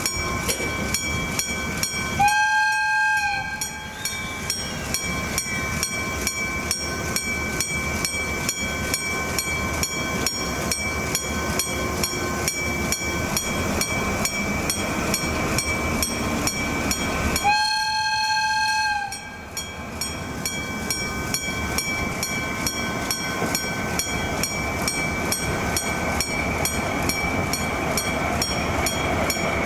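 Japanese level-crossing warning bell ringing in a steady rhythm while a Nagoya Rinkai Railway diesel freight train runs through, its locomotive horn sounding two held blasts, one a couple of seconds in and another about fifteen seconds later.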